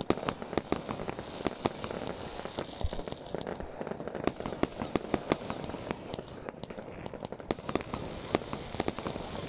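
Fireworks going off: irregular sharp bangs and crackles from bursting shells, several a second, over a steady hiss.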